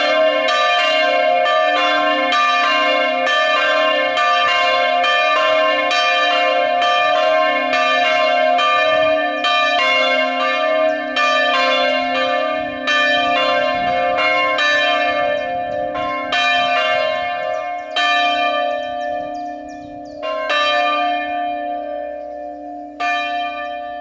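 Full peal of chapel bells swinging and ringing together, the strikes overlapping into a dense clangour. In the last third the strikes come further apart and the ringing grows fainter.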